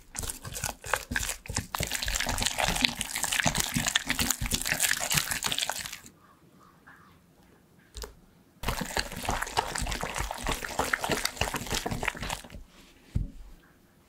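Silicone spatula stirring and scraping choux pastry dough in an enamel saucepan as beaten egg is worked in, making wet squelching and scraping. It comes in two stretches, about six seconds and then about four, with a short pause and a single click between them. The paste is still thick and needs more egg.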